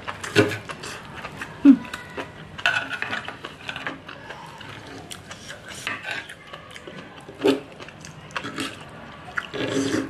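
Fork and knife scraping and clicking against a tray while cutting a soft egg and enoki mushroom omelette: irregular short scrapes and taps, with a brief squeak a little under two seconds in.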